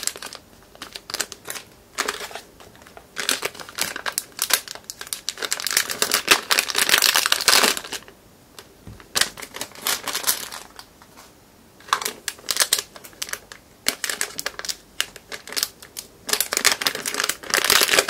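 Plastic packaging bags crinkling as they are handled, in irregular bursts, loudest about six to eight seconds in and again near the end.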